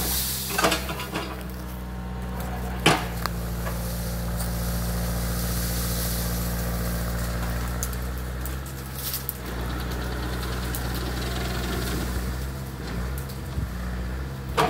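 Mini excavator's diesel engine running steadily under load as its boom pushes over a tree, with a few sharp cracks, the loudest about three seconds in.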